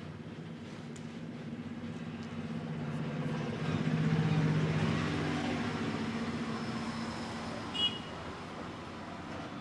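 A motor vehicle passing on the road: its low engine hum swells to its loudest about halfway through, then fades away. A brief high chirp comes near the end.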